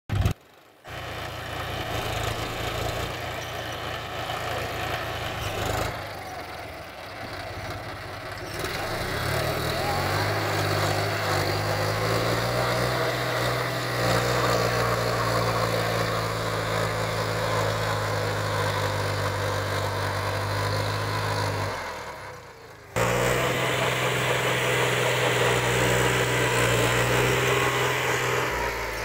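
John Deere 5050D tractor's three-cylinder diesel engine running steadily under load while it drives a rotary tiller through the soil. Its engine note steps up about a third of the way through. The sound breaks off briefly near the start and again about three-quarters of the way through.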